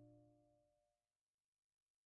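Last notes of guitar music dying away within the first second, then near silence.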